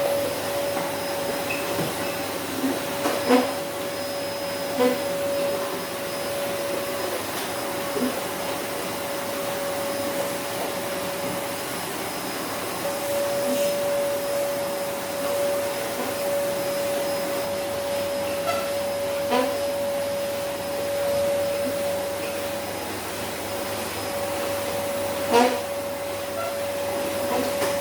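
Vacuum cleaner running on the floor, a steady hiss with a constant whine, broken by a few short knocks and clicks.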